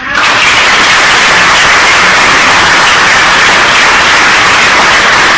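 Theatre audience applauding: loud, dense, even clapping that starts abruptly and holds steady.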